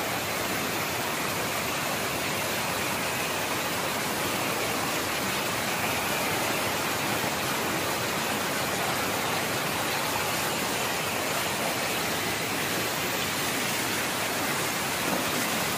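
Pond overflow water pouring over a weir and rushing across the spillway, a steady, even rush.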